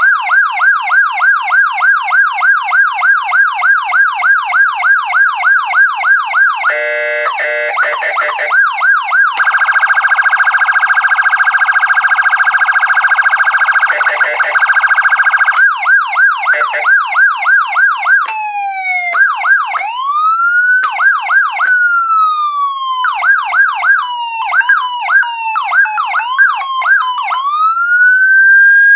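SVP SA450 electronic siren running through its tones: a fast yelp of about four to five sweeps a second, then a rapid high warble from about ten seconds in that lasts about six seconds, then yelp again. In the second half the tone is switched by hand into slow single rises and falls, cut by short bursts of yelp, ending on a long rise to a held peak that glides back down.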